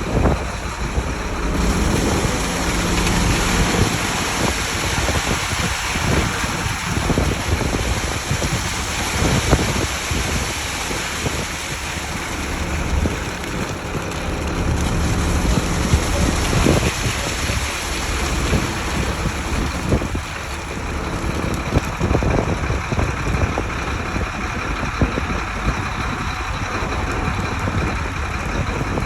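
Ready-mix concrete truck's diesel engine running steadily, with wind rumbling on the microphone.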